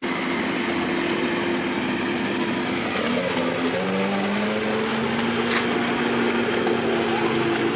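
Recorded engine sound of a real Tiger I tank's V12, used as the custom mp3 engine sound of a 1:16 RC Tiger I. A steady running note that drops in pitch about three seconds in and then slowly climbs again, with scattered sharp clicks.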